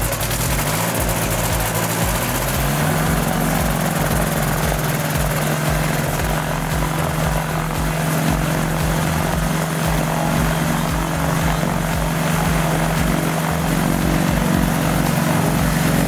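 Motorised hang-glider trike's rear pusher engine and propeller running steadily on the ground. Its note steps up slightly about two and a half seconds in, then holds level.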